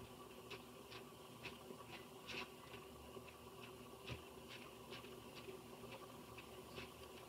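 Faint, light ticking, fairly even at about two ticks a second, over a low steady room hum.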